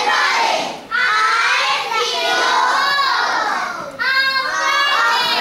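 A class of children chanting together in unison, in phrases a second to three seconds long, with short breaks about a second and four seconds in.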